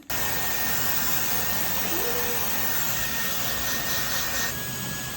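Handheld hair dryer blowing steadily, with a thin high whine that drops a little in pitch about four and a half seconds in.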